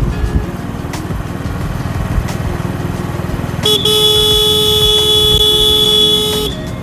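Vehicle engine running while driving along a road. About halfway through, a horn sounds one long steady blast of about three seconds; it is the loudest sound.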